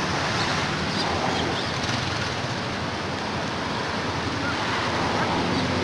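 Steady rushing background noise with a low hum underneath, without distinct events.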